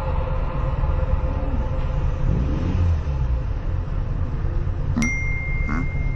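Steady low rumble of motorcycles idling. About five seconds in, a sharp ding rings on as a steady high tone.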